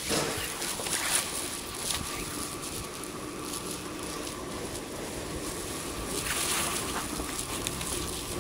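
Footsteps and handheld-camera handling noise over the steady hiss and faint hum of a station hall, with a few sharp knocks in the first two seconds.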